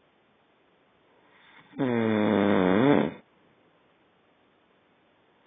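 A man snoring in his sleep: one long snore starting about two seconds in and lasting about a second and a half, with quiet breathing before and after it.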